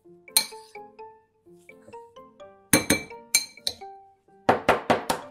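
Metal spoon clinking against a bowl while mashing cooked sweet potato, with scattered sharp clinks and a quick run of clinks near the end, over background music.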